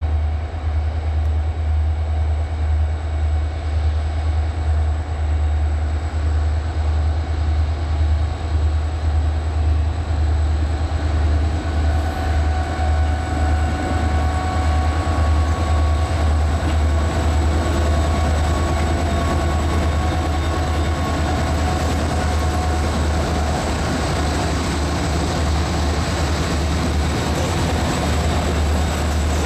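CSX freight train's EMD diesel locomotives, an ex-Conrail SD50 and an SD40-3, pulling out and passing close by: a steady deep engine rumble, with a steady whine joining in about halfway through as the units come alongside.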